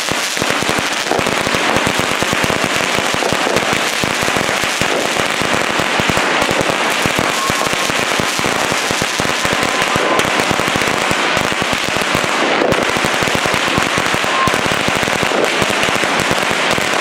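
A firecracker mat going off: a long, unbroken run of rapid small bangs, too dense to count, that keeps going without a pause.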